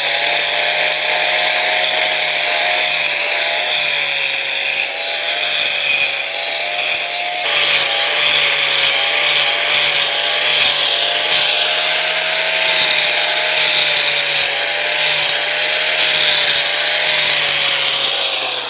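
Angle grinder running at full speed with a steady motor whine, grinding the edge of an existing concrete slab to prepare it for bonding adhesive. About seven seconds in, the grinding turns rougher and louder as it bites into the concrete, and the motor starts to wind down right at the end.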